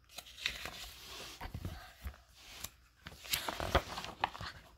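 Paper page of a hardcover picture book being handled and turned: irregular rustling and crinkling with small sharp taps, busiest in the last second and a half.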